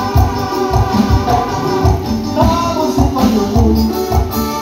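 Live band music played through a PA: a keyboard melody over a steady, pulsing bass beat, with percussion ticking on top.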